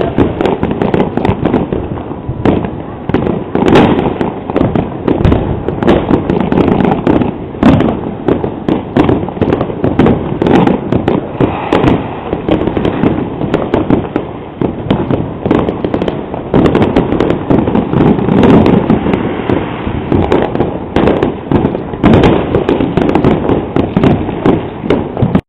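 Dense, unbroken barrage of fireworks and firecrackers: many overlapping bangs and crackles with no pause, heard through a digital camera's poor-quality microphone.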